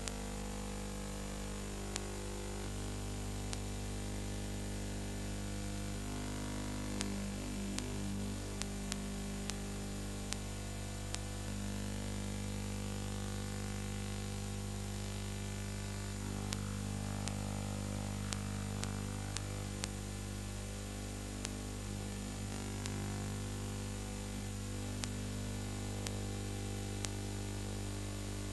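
Steady electrical hum and hiss with scattered sharp clicks: background noise of a transfer of a silent film with no soundtrack.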